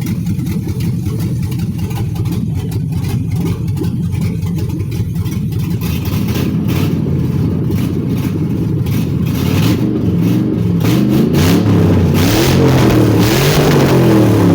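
Engine running through open exhaust headers: a steady idle for the first several seconds, then revved over and over, its pitch rising and falling, loudest near the end.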